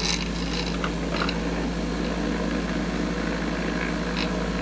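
Vibratory brass-case tumbler running: a steady low motor hum under the dense hiss and rattle of polishing media and brass cases shaking in the bowl.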